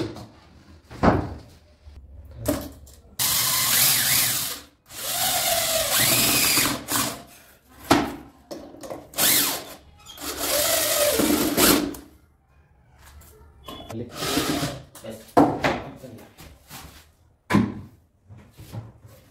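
Cordless drill driver driving screws into a metal drawer slide on a plywood drawer, in three runs of a couple of seconds each, the motor's pitch rising and falling with the trigger. Short knocks and clicks between the runs as the drawer and slide are handled.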